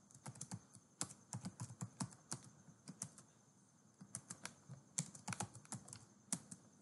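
Faint typing on a computer keyboard: irregular runs of separate keystroke clicks, with a short pause near the middle.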